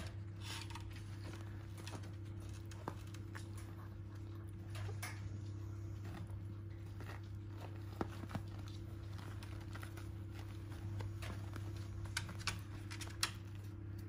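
Steady low hum with faint rustling and a few light ticks as month-old puppies crawl about on soft dog beds.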